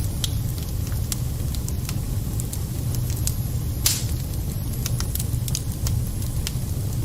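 Wood fire burning in a fireplace: a steady low rumble of flames with irregular sharp crackles and pops, one louder pop about four seconds in.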